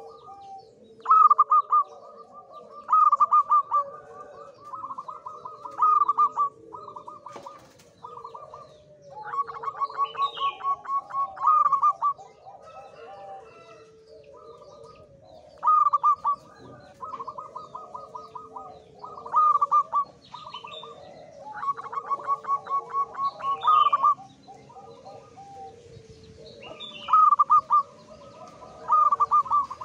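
Male zebra dove (perkutut) in strong breeding condition singing: repeated phrases of rapid staccato coos, each lasting one to three seconds, every few seconds. Fainter, lower bird calls sit underneath.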